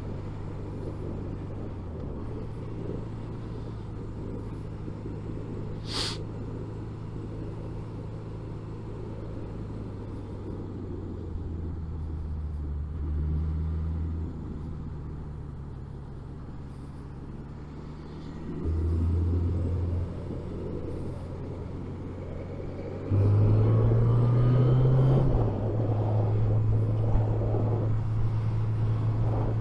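Suzuki GSX 750 inline-four motorcycle engine heard from inside the rider's helmet under steady wind noise, its drone stepping up and down in pitch with throttle and gear changes. It gets louder under acceleration for a moment about two-thirds of the way in and again near the end. A single sharp click about 6 seconds in.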